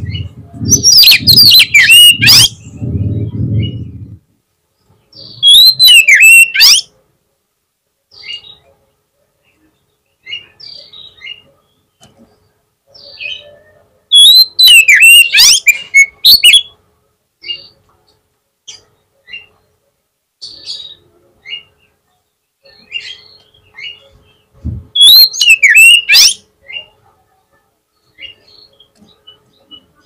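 Oriental magpie-robin singing: four loud bursts of whistled song with quick rising and falling notes, spaced several seconds apart, with short soft calls between them. A low rumble sits under the first few seconds.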